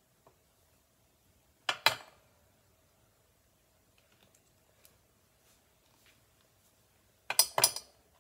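Metal jewelry pliers and small findings clinking against a hard work surface: a short cluster of sharp clicks about two seconds in and another near the end.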